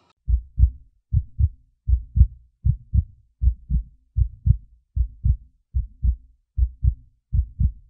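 Heartbeat, a steady double thump (lub-dub) repeating at about 75 beats a minute, heard alone with nothing else in the sound track.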